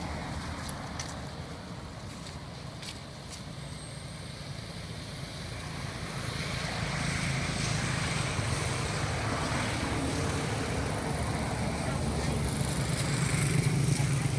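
Outdoor background noise with a low motor-vehicle rumble that swells from about halfway and again near the end, like traffic passing on a road.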